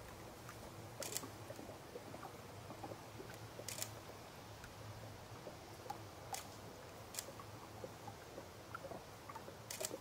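Faint steady hiss and low hum with about five sharp, separate clicks scattered through it.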